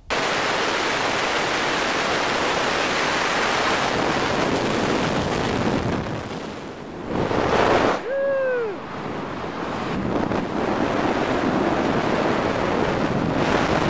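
Steady rush of wind over the microphone of a skydiving camera. It dips briefly about halfway through, and just after that comes a short cry falling in pitch.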